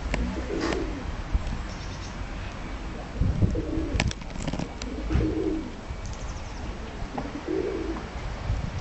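Domestic tumbler pigeons cooing, low coos repeating every couple of seconds, with a few sharp clicks.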